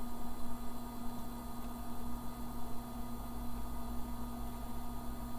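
Steady electrical hum with a few faint, unchanging tones, from the powered-up bare 386 test bench and its running drives and power supply while the machine sits at POST.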